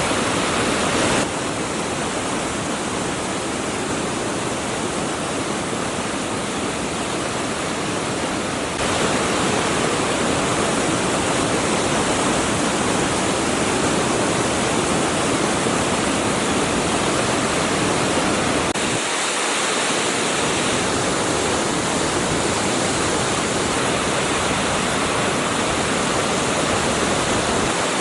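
Flooded waterfall swollen by days of rain, water pouring in a dense, steady, loud rush. The level and tone change abruptly a few times: about a second in, around nine seconds, and around nineteen seconds.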